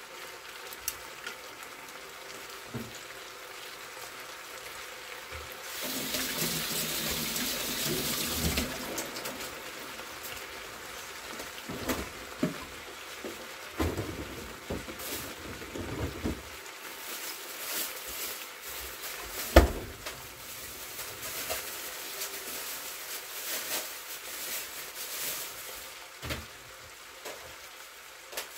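Blood sausage and vegetables sizzling in a frying pan, with scattered clicks and knocks of a utensil against the pan. About six seconds in a louder rush of hissing lasts two or three seconds.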